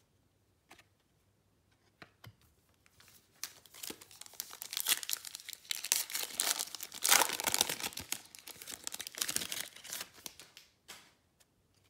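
A Panini Prizm basketball retail card pack's wrapper being torn open and crinkled by hand. After a few faint clicks, crackling tearing and crinkling starts about three seconds in, is loudest around the middle, and stops about a second before the end.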